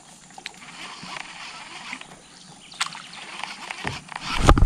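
Low knocks and handling thumps in a small fishing boat, over a faint hiss with a few light clicks; the thumps come near the end and are the loudest part.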